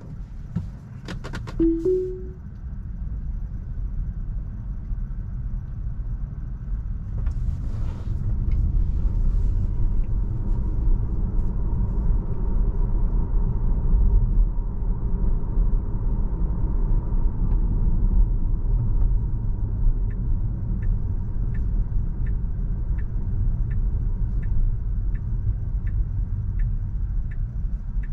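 Tesla driving on city streets: steady low tyre and road rumble with no engine note, growing louder about a quarter of the way in as speed picks up. A short two-note chime sounds about two seconds in. From about two-thirds of the way through, a turn-signal indicator ticks steadily, about one and a half ticks a second.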